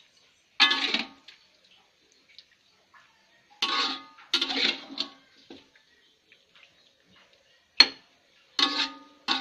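Metal spatula clattering and scraping against a wok and a ceramic bowl as cooked taro stems are served out, in about five separate ringing clanks with a sharp click near the end.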